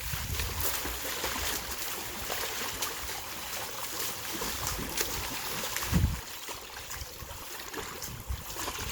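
Swimming-pool water splashing and sloshing steadily as swimmers and a dog move through it, with one heavier low thump about six seconds in.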